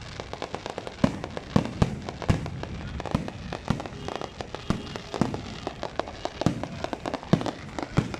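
Fireworks going off in quick, irregular succession: a dense run of sharp bangs and pops, several a second, over a continuous crackle.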